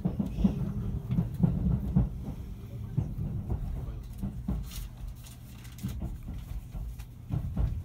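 JR 373-series limited express train heard from inside the passenger car: a low running rumble with irregular wheel clicks and knocks over rail joints and points. It grows quieter about three seconds in as the train slows for its station stop.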